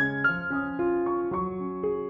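Background piano music: a melody of single notes struck two to four times a second, each ringing on over held lower notes.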